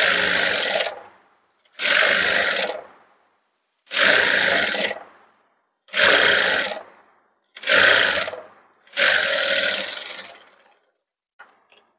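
Industrial lockstitch sewing machine running in six short bursts of about a second each, roughly every two seconds, the last a little longer, as it stitches readymade piping onto a blouse piece.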